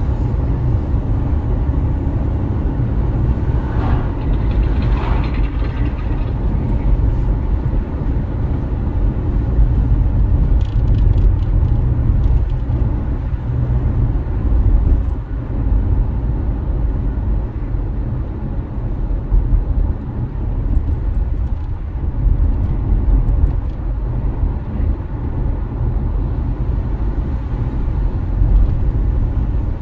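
Steady low rumble of a car's engine and tyres heard from inside the cabin while driving along an open road.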